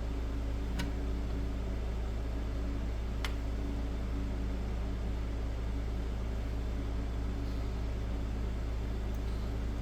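Steady low electrical hum with a faint hiss, with two faint clicks, one just under a second in and another about three seconds in.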